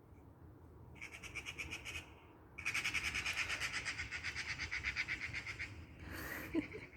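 Crows giving a fast rattling alarm chatter, mobbing a stalking cat: a short burst about a second in, then a longer run of about three seconds.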